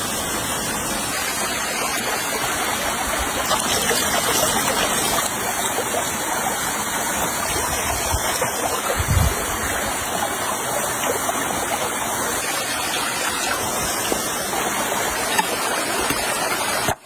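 A stream flowing, a steady rushing of water.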